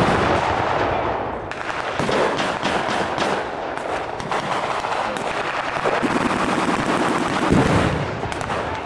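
Blank-firing rifles and machine guns in a WWII reenactment battle: a dense, continuous run of overlapping shots, with a deeper bang near the end.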